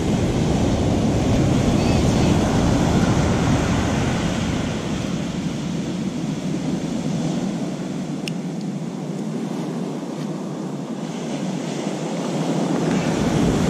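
Ocean surf breaking close by, with wind buffeting the microphone: a steady rushing noise whose low rumble eases about eight seconds in. There is a single sharp click a little after eight seconds.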